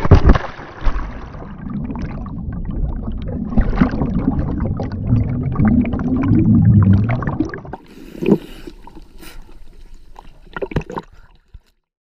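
River water splashing over a camera, then churning and gurgling around it under the surface, muffled and low-pitched for several seconds. About eight seconds in the sound thins out, with a few sharp splashes near the end.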